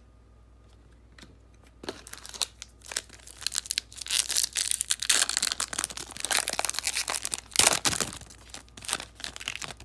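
A 2008 Upper Deck football card pack's wrapper being torn open and crinkled by hand: a long run of crackling rips and rustles that starts about two seconds in.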